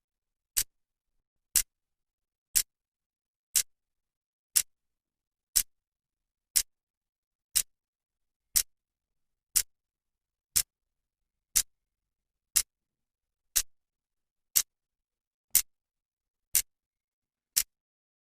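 Clock's second hand ticking once a second, each tick a sharp, dry click with silence in between.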